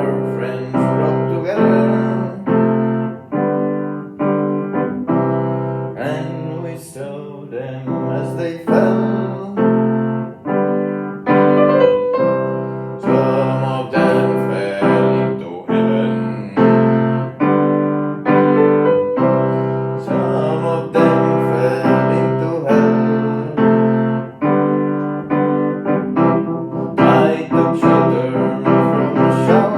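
Piano playing a slow song: chords and melody notes struck one after another, each ringing out and fading.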